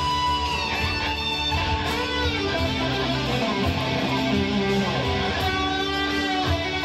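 Electric guitar, a PRS, playing a rock lead solo: sustained notes with bends and vibrato over a backing track with steady low notes underneath.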